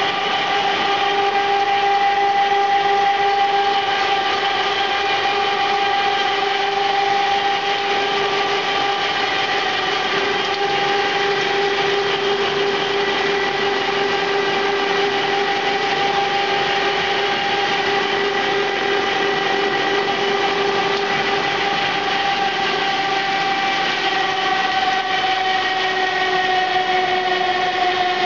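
TSE70 pet food extrusion line machinery running: a steady, loud mechanical whine made of several held tones over a noisy hum, sliding slightly lower in pitch near the end.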